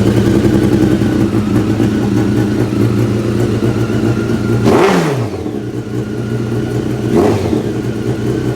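Honda CBR954RR's inline-four engine idling steadily with its exhaust newly bolted back on. It is blipped on the throttle about halfway through and again more lightly near the end, each rev dropping quickly back to idle.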